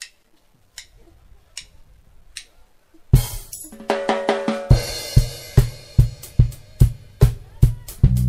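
Drummer of a live reggae band counting in with four clicks, then a crash and a short drum roll as the bass and guitar come in. The full band then settles into a steady beat with a kick about twice a second.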